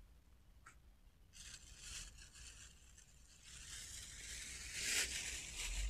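Dry rustling and scraping from a person moving about on pine-needle ground and handling a bag. A short click comes under a second in, and the rustle swells in the second half, loudest about five seconds in.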